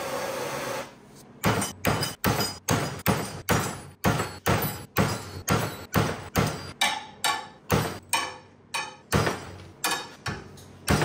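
Hammer blows on a half-inch steel bar, about two to three a second with a metallic ring, beating an offset bend into it. They follow a second of steady rushing noise that stops.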